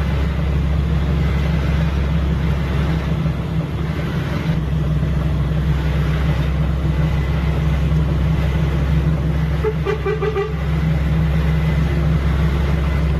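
Heavy vehicle engines running with a steady low drone, and a horn tooting in a few short pulses about ten seconds in.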